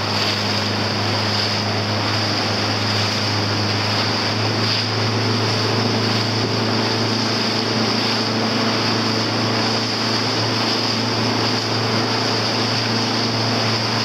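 Motorboat engine running steadily at a constant pitch, over an even rush of water and wind.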